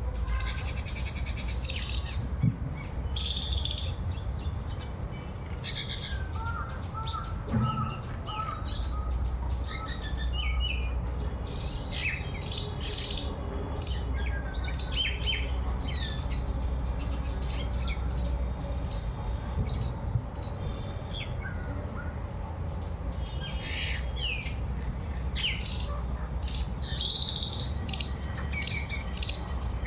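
Several birds chirping and calling in short, scattered notes, over a steady high-pitched hum and a low rumble.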